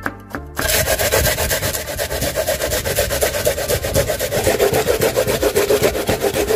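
Raw onion rubbed back and forth on a grater in quick, even strokes, a steady rasping that starts about half a second in as the onion is ground to pulp and juice.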